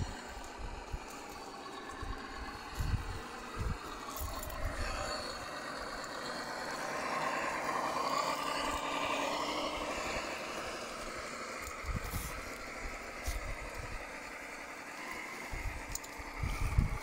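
Electric motor and gearbox of a Tamiya Toyota Hilux High-Lift RC crawler whining as it climbs through brush, the whine wavering in pitch and louder about halfway through, with some rattling. A few short low thumps come and go.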